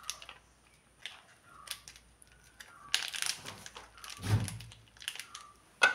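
Plastic sachet of ginger-garlic paste crinkling and crackling as it is handled and squeezed out, with a dull bump a little past four seconds in.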